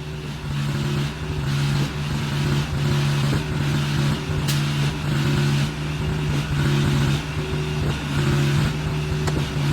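An engine running steadily at a constant pitch, its level swelling and easing, with a single sharp knock about four and a half seconds in.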